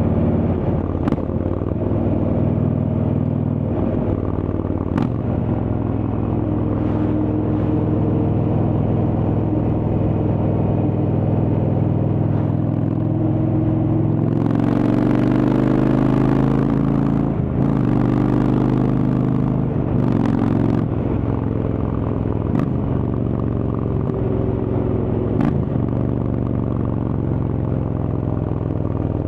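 Indian Chieftain's Thunderstroke V-twin running under way through a Freedom Performance exhaust, its pitch shifting a few times with throttle. A rushing noise swells over it for several seconds past the middle.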